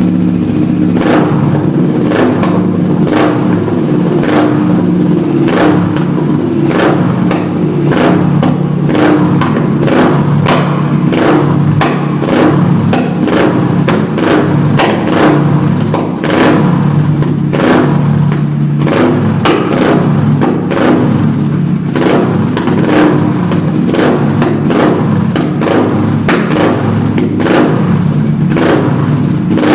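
Kawasaki ER-6f's 649 cc parallel-twin engine running loud with a steady deep note, broken by frequent sharp pops about once or twice a second.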